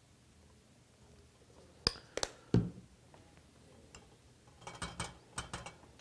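Glass test tubes clinking as they are handled in a plastic rack: a few sharp clinks and a dull knock about two seconds in, then a quick run of clinks near the end.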